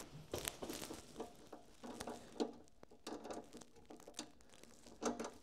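Faint scattered clicks, taps and rustling of hands working a small nut tight on a plastic gauge bracket under a mini excavator's dash panel, with a few sharper knocks about half a second in, about two and a half seconds in and near the end.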